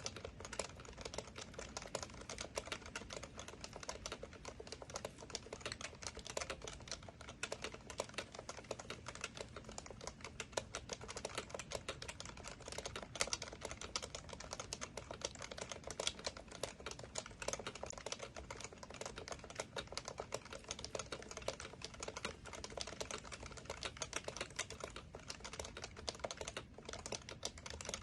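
Continuous fast typing on an HHKB Professional Classic keyboard with Topre electro-capacitive tactile switches, a dense unbroken stream of keystrokes.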